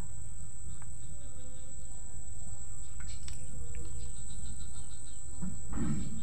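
Steady high-pitched whine over a low background rumble, with a few faint clicks as the multimeter probes are handled.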